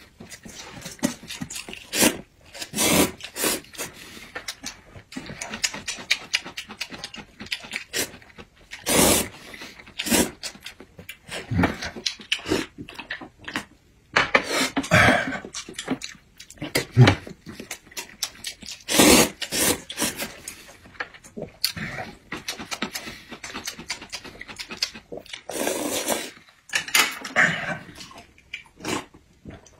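A person eating noodles in broth: repeated loud, wet slurps at irregular intervals with chewing between them, then drinking broth straight from the bowl near the end.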